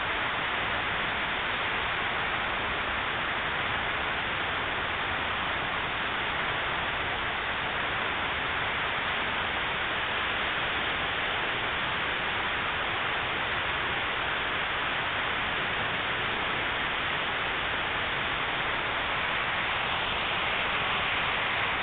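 Rows of fountain jets in the Unisphere pool spraying and splashing down: a steady, even hiss of falling water.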